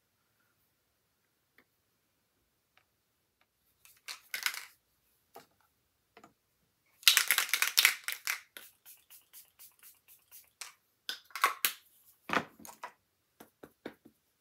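Clicking and rattling of makeup containers and tools being picked up, opened and set down, in three busy spells of clatter, the loudest past the middle, with a heavier knock near the end.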